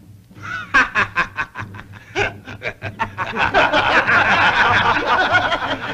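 Men laughing in jeers: one man's pulsing 'ha-ha' starts about half a second in, and from about three seconds in several voices are laughing at once.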